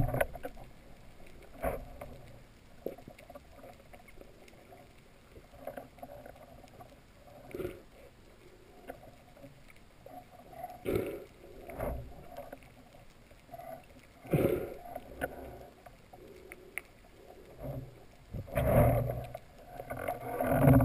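Underwater: muffled knocks and bumps on a camera housing mounted with a speargun, scattered every few seconds over a low water hiss, with a denser run of bumps near the end.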